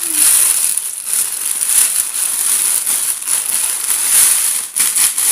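Wrapping paper being torn and crumpled as a gift is unwrapped: a dense, continuous crinkling and rustling, with a couple of short breaks near the end.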